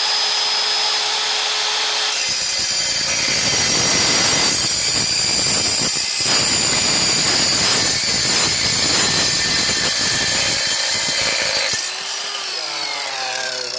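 Evolution EVOSAW180HD 7¼-inch steel-cutting circular saw runs free for about two seconds, then cuts through a 2-inch steel pipe of about 1/8-inch wall with a loud, dense grinding noise for about ten seconds. Near the end the blade comes out of the cut and the motor whines down as the blade spins to a stop.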